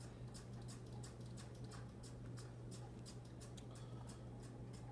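Faint, quick high ticks, several a second, over a steady low hum.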